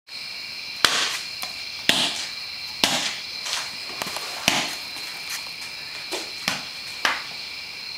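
Paint-covered ball smacked down onto paper on a floor, a sharp slap every second or so, some louder than others, over a steady high-pitched whine.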